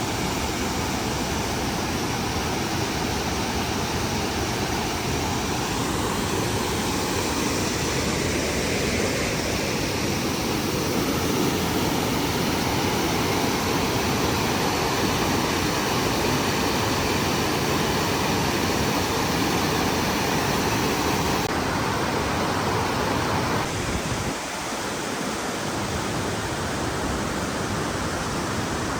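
Steady, loud rush of falling water from the Toce Waterfall. The sound changes abruptly about three-quarters of the way through and is a little quieter afterwards.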